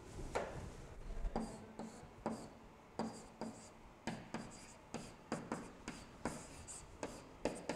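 Pen strokes on an interactive whiteboard: a stylus tapping and scratching across the board in short, irregular strokes, about two or three a second, as boxes and arrows are drawn.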